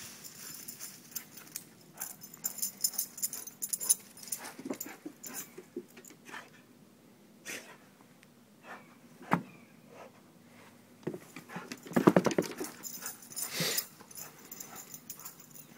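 A dog running through dry leaf litter and on wooden deck steps, its paws crunching and tapping in scattered bursts. About twelve seconds in comes a short, loud, pulsing dog vocalization.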